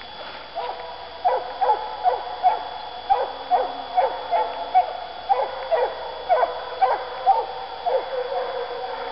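Russian hounds baying in chase, giving tongue on a hot trail: a run of repeated calls, each falling in pitch, about two or three a second, starting about half a second in and fading near the end.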